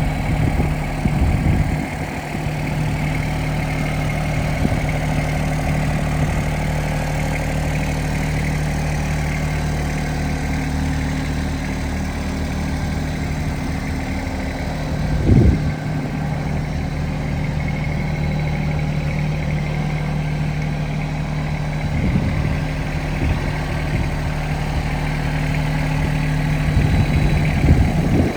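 Yanmar SA425 compact tractor's diesel engine running steadily at an even speed, with a few short low thumps now and then.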